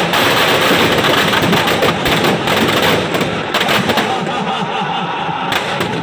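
Firecrackers packed inside a burning Dussehra Ravan effigy going off in a dense, rapid string of crackles and pops, thinning a little near the end.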